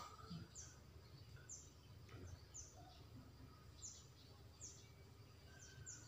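Quiet background with a bird chirping faintly: short, high, falling notes, roughly one a second.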